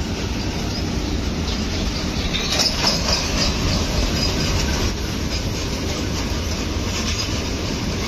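Freight train of covered goods wagons rolling past: a steady rumble of steel wheels on the rails with clattering over the track. About three seconds in there is a brief louder stretch of sharper metallic clatter and squeal.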